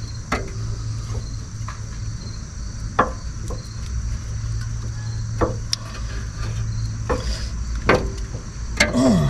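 Scattered sharp metal clicks and knocks as brake pads and their spring clips are worked into a caliper bracket, over a steady chirring of crickets and a low hum.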